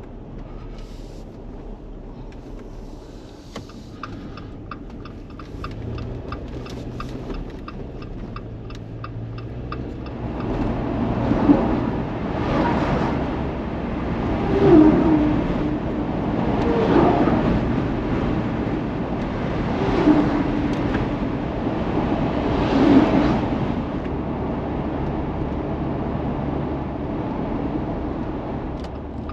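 A Jeep driving on a winter road, heard from the cab: steady engine and tyre noise. A faint rapid ticking lasts a few seconds near the start. From about ten seconds in, the noise grows louder and swells about five times with gliding pitch.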